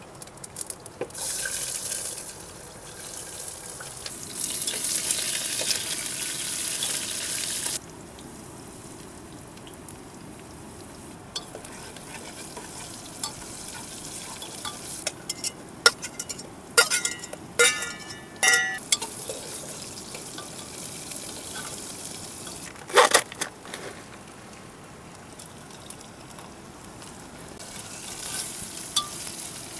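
Pulao being cooked in a pot: oil sizzling loudly for the first several seconds, then a quieter sizzle while it is stirred, with a metal spoon clinking against the pot several times and one sharp knock. The sizzle rises again near the end.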